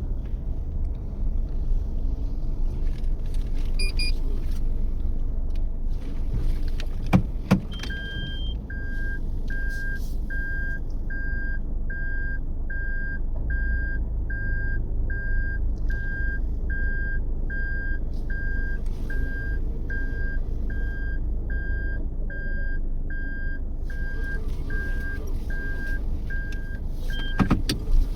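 Steady engine and road noise inside a moving Toyota Yaris. A couple of sharp clicks come about seven seconds in, then a dashboard warning chime beeps steadily, a little over once a second, for about twenty seconds before stopping near the end.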